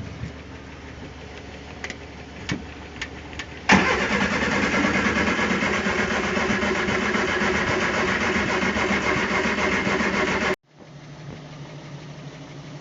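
Triumph Spitfire's four-cylinder engine cranking on the starter after a few light clicks, trying to fire a couple of times but not starting, a sign of a fuel problem in the freshly cleaned carburetors. The cranking starts about four seconds in, runs steadily for about seven seconds and cuts off suddenly.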